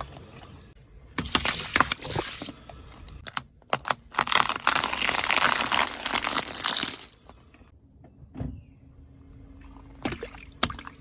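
Objects crushed under a car tyre: crackling, breaking crunches, with a long wet hissing, sloshing stretch from about 4 to 7 seconds in, a single thump a little later, and more crackles near the end.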